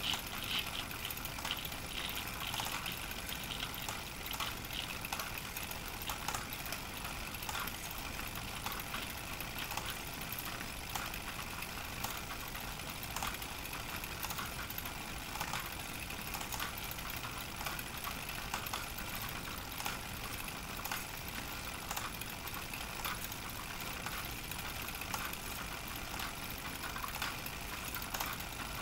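Pathescope Baby hand-crank 9.5 mm film projector running, its mechanism giving a steady stream of fast clicks as the film is cranked through the gate.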